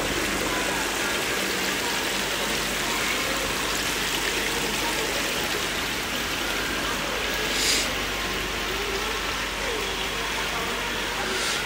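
Steady splashing and rushing of water from a cascading indoor fountain. Faint voices murmur under it, and a brief louder hiss comes about two-thirds of the way through.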